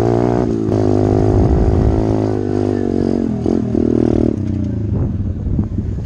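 SSR 125 TR pit bike's single-cylinder four-stroke engine pulling the bike along a dirt trail, revving up and easing off as the throttle is worked. The note dips briefly about half a second in, climbs again, and drops away after about four seconds.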